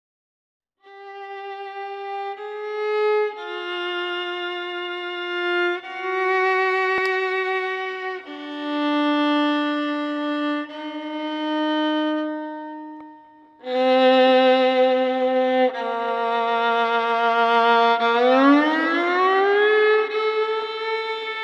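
Violin playing a slow melody of long held notes. It grows louder about two-thirds of the way through, then one note slides slowly upward.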